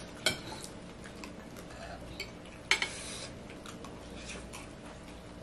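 Spoons and forks clinking and scraping against plates as people eat, with scattered sharp clicks and a louder clatter about three seconds in.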